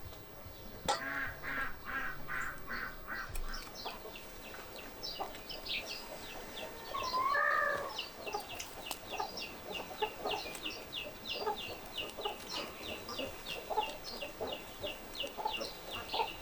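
Chickens clucking, with a long run of short high chirps, about three a second, through the second half.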